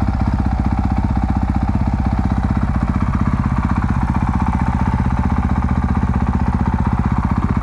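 Honda CRF450L's single-cylinder four-stroke engine idling steadily, with an even, rapid pulse and no revving.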